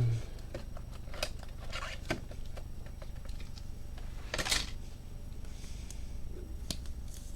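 Small clicks and taps of a trading card and a plastic top loader being handled, with a brief sliding rustle about four and a half seconds in.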